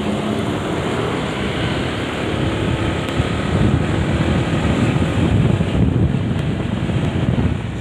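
Wind buffeting the microphone over the running engine of a Honda PCX scooter as it rides off and speeds up, getting louder about halfway through as the speed climbs.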